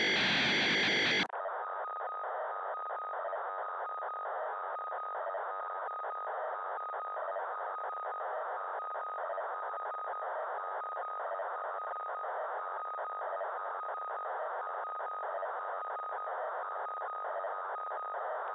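The GRAW DFM-09 radiosonde's FSK telemetry signal, received near 402 MHz by an RTL-SDR and played as audio through SDR#: a steady data hiss with one steady tone running through it and a faint pulse about once a second. About a second in it suddenly turns quieter and thinner.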